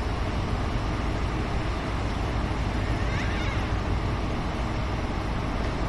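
A train running past: a steady rumble, with wind buffeting the microphone.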